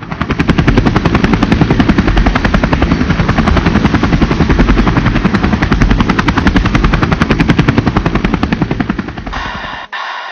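Rapid, even chopping pulse of about ten beats a second, heavy in the low end, a helicopter-rotor sound effect opening the added soundtrack. It stops abruptly near the end, and music takes over.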